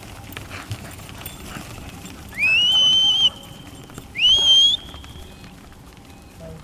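A handler's two whistle commands to a working cattle dog: the first, about two seconds in, sweeps up and then holds steady for nearly a second; the second, a second and a half later, is shorter and sweeps up again at its end. Cattle hooves shuffle faintly on the grass beneath.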